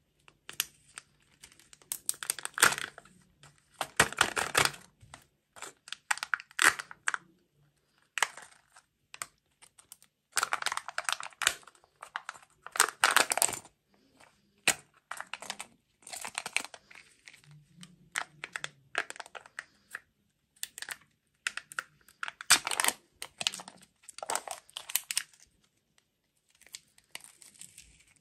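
Kinder Joy plastic egg being handled and opened: crinkling and tearing as the plastic sealing lids are peeled back from its two halves, mixed with clicks of the plastic shell, in irregular bursts a second or two long.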